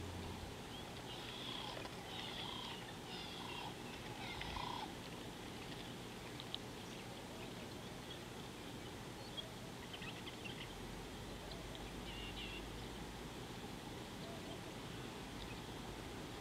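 A run of short, repeated wild animal calls in the first few seconds, then a few faint chirps and ticks, over a steady outdoor background hiss.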